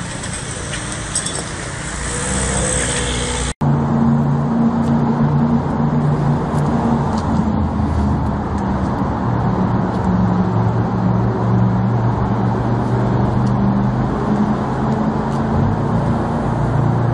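Street traffic with a vehicle engine idling steadily, a low hum under the road noise. A brief dropout about three and a half seconds in marks an edit.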